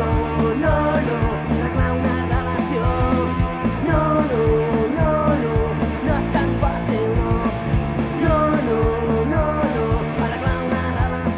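Rock band demo recording playing: drums with steady hi-hat ticks, bass and electric guitars under a bending lead melody line.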